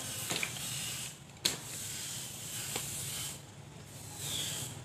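Steady outdoor hiss with a few short, faint knocks about a second apart.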